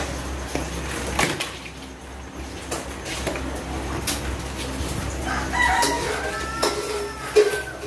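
A rooster crows once about five seconds in, a call lasting roughly two seconds. Under it are scattered knocks and rustles from orange flexible plastic conduit being pulled and handled, with one sharper knock near the end.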